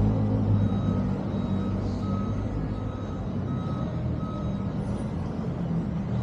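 A vehicle engine running steadily while an electronic beeper sounds a series of short, evenly spaced beeps, about one and a half a second, which stop a little over four seconds in.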